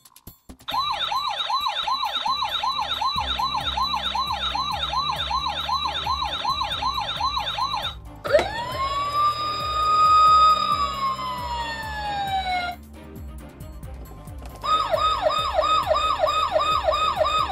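Toy fire trucks' electronic siren sound effects: a fast yelping warble of about two cycles a second, then one wail that rises, holds and falls away, then the fast yelp again near the end, with a low rumble underneath through the middle.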